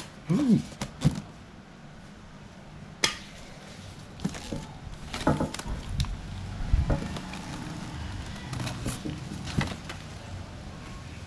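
Packaging being handled: a clear plastic display case and cardboard box are moved and set down, giving scattered taps, knocks and rubbing sounds.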